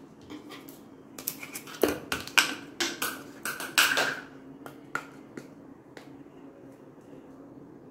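Kitchen handling sounds: a small ingredient container and a spoon being handled over a steel mixing bowl, giving irregular clicks, knocks and short scrapes, a couple of them briefly ringing. They stop after about five seconds.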